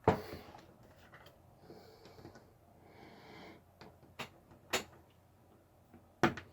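A few sharp clicks and taps of small plastic computer parts being handled, the loudest right at the start and another near the end, with faint rustling between.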